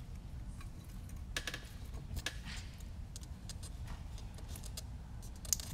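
Scattered light clicks and rattles of hands handling a small FPV quadcopter and its battery and strap on a rubber work mat, over a steady low hum.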